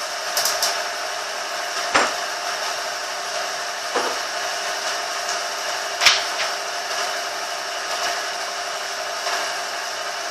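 Wood sawmill machine running steadily with a whining hum, with sharp knocks from the wood or machine about every two seconds in the first half.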